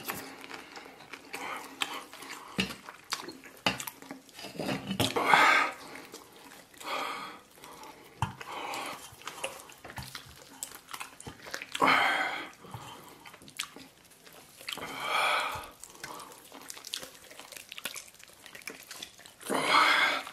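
Wet, greasy sounds of a whole roast duck being pulled and torn apart by hand, close to the microphone, with chewing and mouth sounds: a handful of short, louder wet bursts spaced a few seconds apart over small sticky clicks.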